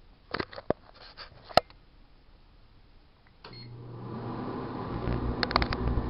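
1978 GE Dual Wave microwave oven being set and started. Several sharp clicks come first. About three and a half seconds in there is a short beep, and the oven starts running with a steady low hum that grows louder. A quick cluster of clicks comes near the end.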